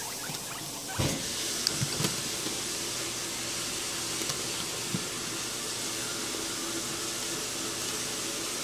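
A bowl of vegetables handled and set down in a guinea pig cage: a bump about a second in and a few light clicks, over a steady hiss.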